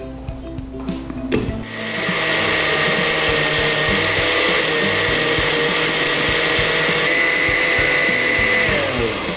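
Countertop blender with a glass jar switching on about a second and a half in and running at a steady speed, pureeing tomatoes, vegetables and water into a liquid sauce. Near the end the motor is switched off and winds down with a falling pitch.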